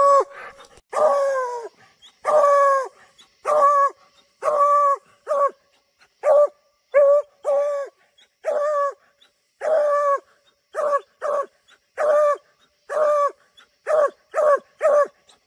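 Bluetick coonhound barking treed: baying at a raccoon up the tree in a string of about twenty loud barks, each dropping in pitch at the end. They come about one a second at first and grow shorter and quicker near the end.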